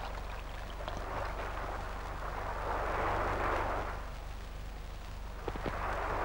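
Surf washing onto a beach, the wash swelling and fading in slow waves over a steady low hum from an old film soundtrack. A couple of light clicks come near the end.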